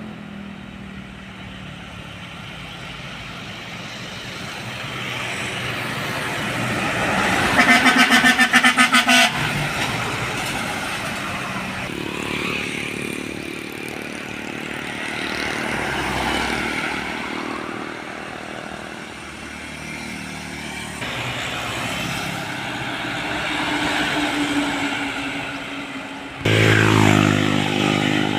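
Trucks and other traffic passing on a road, the engine noise swelling and fading. About eight seconds in, a vehicle horn sounds in a rapid run of even pulses for about two seconds. Near the end, a louder pitched vehicle sound starts suddenly.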